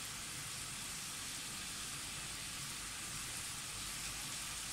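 Marinated chicken skewers frying on a hot non-stick tawa: a steady, even sizzle.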